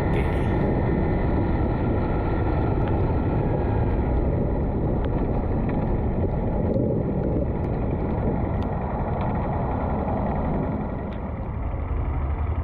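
Yamaha WR155 motorcycle on the move in heavy rain: steady wind rush on the microphone over the single-cylinder engine and the tyres on a wet road. The noise eases briefly near the end.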